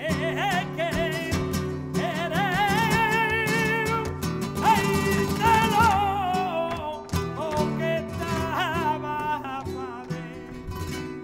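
Live flamenco music: a singer's long, wordless melismatic wail with heavy vibrato over two acoustic flamenco guitars. Sharp clicks are scattered through it.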